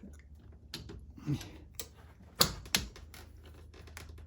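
Scattered sharp metallic clicks and knocks of a socket extension being pulled out of a torque wrench and socket setup, the loudest knock about halfway through.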